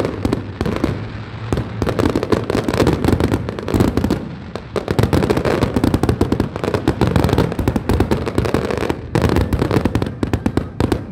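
Fireworks display: a dense, continuous barrage of rapid bangs and crackles, easing briefly about halfway through and again near the end.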